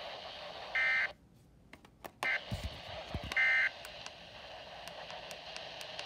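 Weather radio receiver playing two short high electronic tone bursts about two and a half seconds apart. Between them the audio drops out for about a second and a few low thumps come through, then a steady static hiss carries on.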